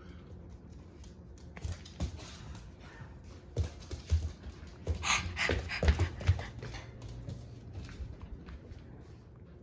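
Husky panting while mouthing its plush toy, with irregular soft rustles and knocks that are busiest about five to six seconds in.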